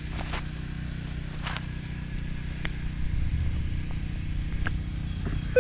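Steady low motor hum, with a few short clicks and knocks of the GoPro being swivelled on its ball-head mount on the metal detector.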